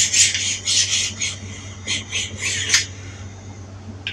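Kitchen knife drawn repeatedly through a knife sharpener: quick rasping strokes, about three a second, that stop about three seconds in.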